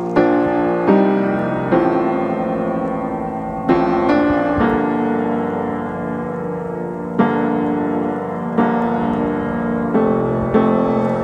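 Slow piano music: chords struck every second or two and left to ring.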